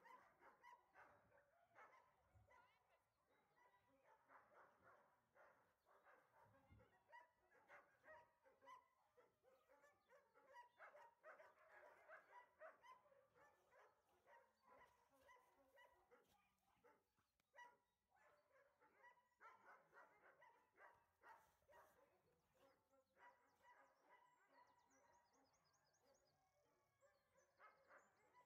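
Dogs barking, yipping and whining faintly, in many short calls throughout.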